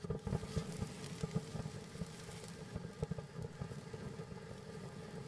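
'It's A Boy' ground fountain firework spraying sparks: a steady hiss scattered with quick crackling pops, busiest in the first couple of seconds and then settling into a more even spray.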